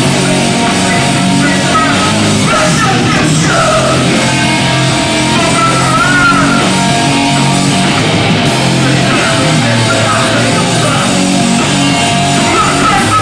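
A hardcore punk band playing live, loud and continuous: distorted guitars, bass and drums.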